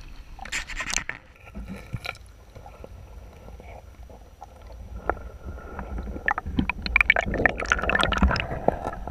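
River water heard underwater: muffled gurgling and rumbling with many sharp clicks and knocks, growing louder over the last few seconds. A short splash comes about half a second in.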